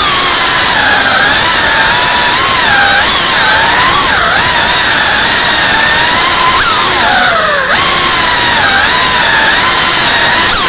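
Tiny whoop FPV drone's motors and ducted propellers whining, the pitch rising and falling constantly with the throttle. About three-quarters of the way through, the whine sinks steeply and then jumps back up.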